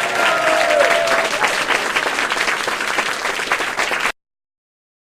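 Crowd applause, a dense patter of many hands clapping, with a few cheering voices in the first second or so; it cuts off abruptly about four seconds in.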